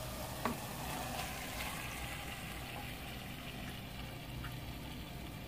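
Thick yogurt marinade with chicken poured into a pot of hot oil, potatoes and onion, the pot sizzling and bubbling steadily. A light knock about half a second in.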